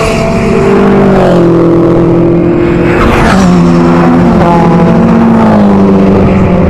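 Cars passing at speed one after another, loud: each engine note drops in pitch as the car goes by and heads off down the straight. A second car passes close about three seconds in, and another engine rises and falls in pitch towards the end.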